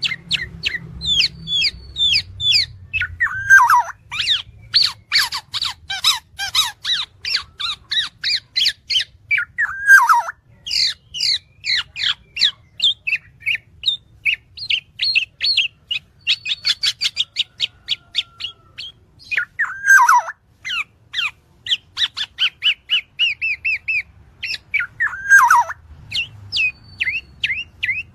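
Black-naped oriole calling noisily: a fast, unbroken chatter of short high notes, with a louder downward-sliding call about every three to six seconds.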